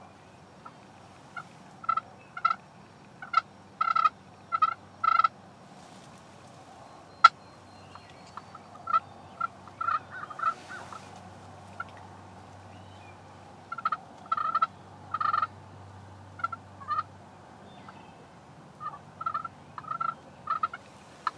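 Wild turkeys calling in several runs of short, evenly spaced notes, with one sharp click about seven seconds in.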